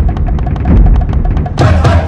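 Instrumental music driven by percussion: deep drum beats under a fast, even ticking of sharp strokes, with a loud crash about one and a half seconds in.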